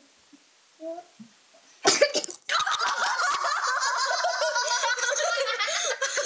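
A sudden cough-like splutter about two seconds in, then a child laughing hard and without a break, high and wavering.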